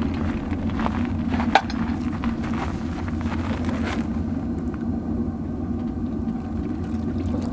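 Steady low rumble of an idling vehicle engine. Scattered crunching steps in snow come during the first four seconds, with a sharp metallic clink about one and a half seconds in.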